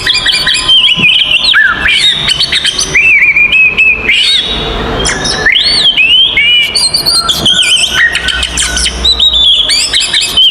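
Oriental magpie-robin (kacer) singing loudly without a break: a fast, varied run of whistles, sliding notes and chirps. This is the aggressive 'fighting' song that provokes other magpie-robins to answer.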